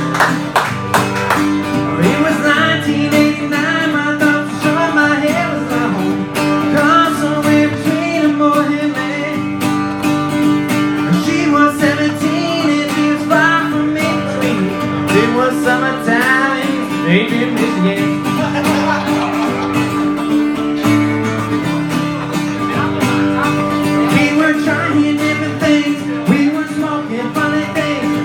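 A country-style song played live, a singer with guitar, with a steady held note running under it.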